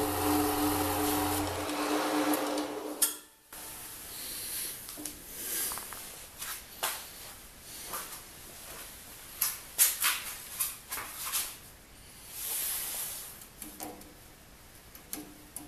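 An old Milwaukee horizontal metal-cutting band saw running with a steady hum that stops about two seconds in. After it stops there are scattered sharp clicks and knocks.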